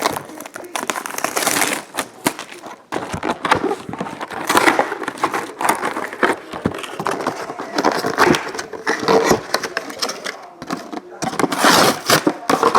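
Crinkling and rustling of plastic wrappers, with many small clicks and tears, as a trading-card box and its packs are handled and opened.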